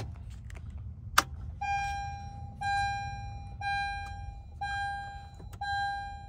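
Two sharp clicks, then the Honda Amaze's dashboard warning chime sounding five times, each a steady tone lasting most of a second and repeating about once a second, as the ignition is switched on.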